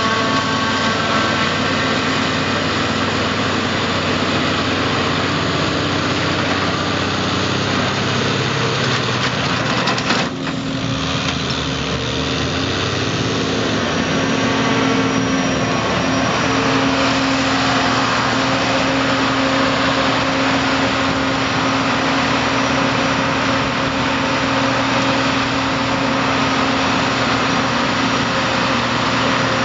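John Deere 5830 self-propelled forage harvester running under load while chopping maize, with a tractor engine running alongside: a steady, dense engine and machine noise. About ten seconds in there is a brief break, and the mix of engine hum changes after it.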